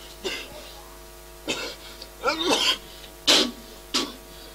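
A man coughing hard in repeated hacking fits, about six harsh coughs with strained voice sounds in them, acted as the cough of someone gravely ill with tuberculosis.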